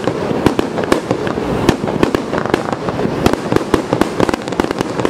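Fireworks display: aerial shells bursting in a rapid, irregular string of sharp bangs and cracks over a continuous rumble.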